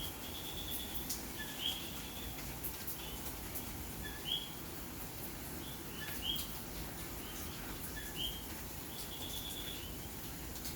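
Puerto Rican coquí frogs calling their two-note "co-quí" again and again, several overlapping, the loudest repeating roughly every two seconds. Steady rain hisses underneath.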